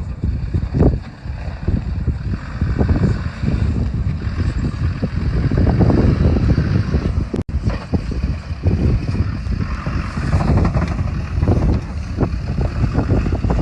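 Land Rover Discovery 2 Td5 five-cylinder turbodiesel running as the vehicle drives off-road, mixed with wind buffeting the microphone. The sound cuts out for an instant about halfway through.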